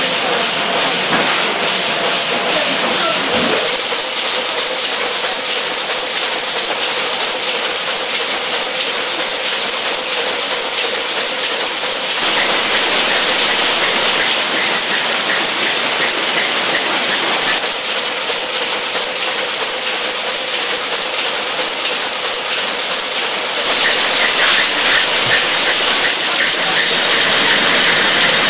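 Power looms weaving woollen cloth: a loud, dense, fast mechanical clatter that runs on without pause. Its tone shifts about twelve seconds in and again near the end.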